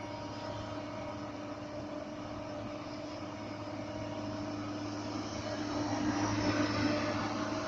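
Excavator's diesel engine running with a steady hum, growing louder about six seconds in.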